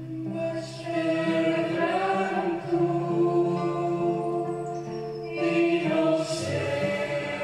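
Background music: voices singing long held notes in a choir or chant.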